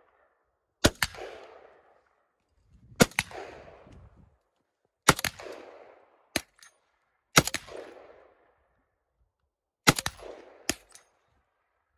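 Rifle fire: five single shots about two seconds apart, each sharp crack followed by a rolling echo that dies away over about a second. Two fainter sharp cracks fall between the later shots.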